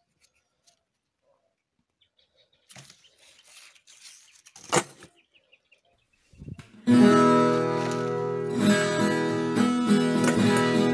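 Faint knocking and rustling of dried corn cobs being handled, with one sharp knock about five seconds in; then strummed acoustic guitar background music starts about seven seconds in and is the loudest sound.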